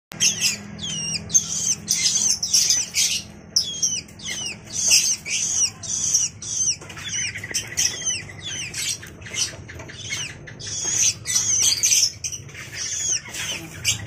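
Young long-tailed shrike calling: a quick, unbroken series of short calls, many sliding down in pitch, over a faint steady low hum.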